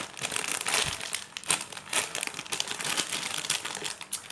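Irregular crinkling and rustling from handling a marshmallow squishy toy.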